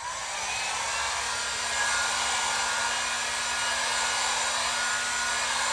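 Pro Point electric heat gun switching on and then blowing steadily, an even rush of air over a constant low motor hum. It is heating a truck's body side molding to soften the adhesive behind it.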